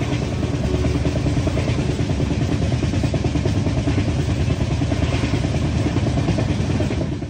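Running noise of a moving train heard from a carriage window: a steady, loud low rumble of wheels on the rails.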